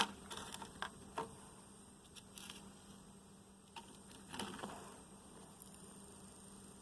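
Faint scattered clicks and a brief soft rustle about four and a half seconds in, over a low steady hum: handling noise.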